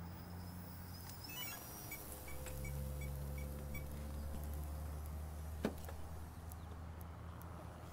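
Wind rumbling on the microphone, with a run of about six short, evenly spaced high electronic beeps about two seconds in and a single sharp click near the six-second mark.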